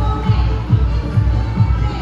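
Upbeat dance music with a heavy, steady bass beat.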